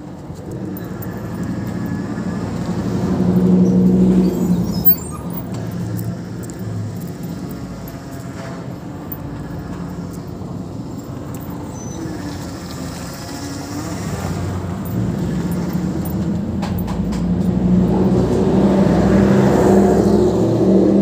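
Motor vehicles running past on the street, the engine sound swelling as one goes by about four seconds in and building again for a longer pass near the end.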